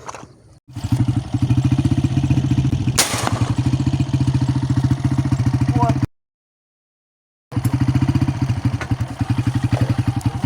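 An engine running steadily with a fast, even beat. A single sharp crack sounds about three seconds in. The engine sound cuts out completely for about a second and a half past the middle, then comes back unchanged.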